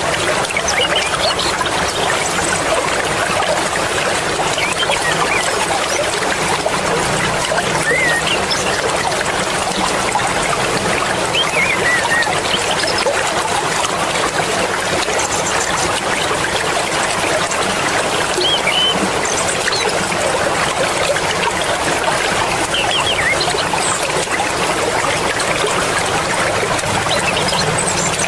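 Fast-flowing mountain river water rushing and splashing steadily, with a few faint high chirps now and then.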